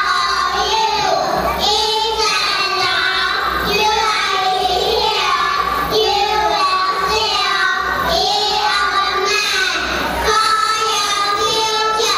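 A large group of young kindergarten children singing a song together, led by a teacher, without a break.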